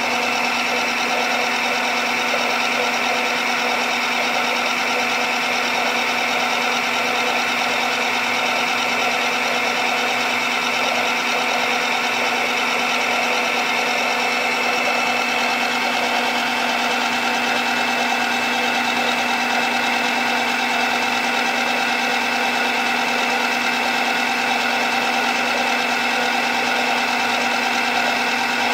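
Governor test rig running steadily, driving a Woodward EG3P electro-hydraulic actuator at about 550 rpm: an even machine hum with a steady whine.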